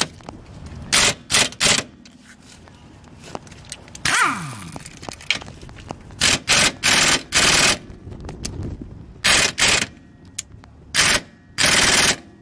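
High-torque impact wrench hammering on a seized rear lower control arm bolt in short bursts, about a dozen in clusters, with a brief falling whine about four seconds in; the bolt is not breaking loose.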